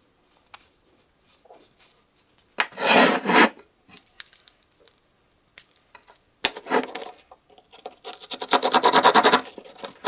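Wooden block and Swiss Army knife handled on a wooden tabletop: a scraping rub about three seconds in and another near seven seconds. From about eight seconds a Victorinox Swiss Army knife's saw blade starts cutting the pine block in quick, even strokes.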